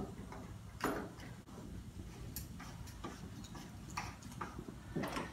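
A few scattered light clicks and taps of metal parts as the top of a water pressure regulator is pushed back down onto its spring and fitted by hand.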